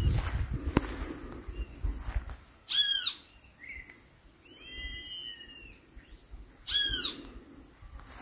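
A bird calling: two loud, short, arching calls about four seconds apart, with a fainter call between them. Low rustling noise fills the first couple of seconds.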